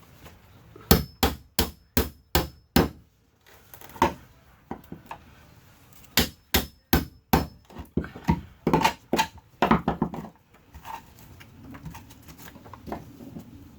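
Hammer blows in quick runs of five or six, about two or three a second, with short pauses between the runs.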